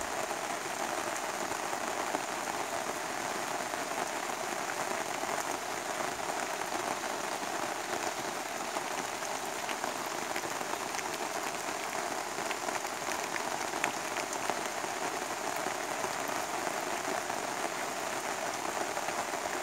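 Steady rain falling on the canopy overhead and the campsite, with scattered sharp drop ticks.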